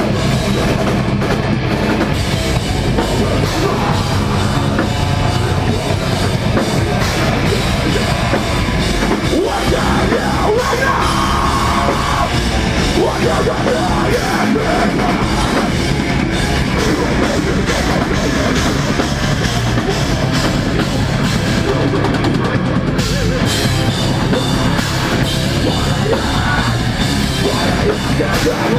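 Deathcore band playing live at full volume: heavily distorted electric guitars and a drum kit, with vocals into a microphone.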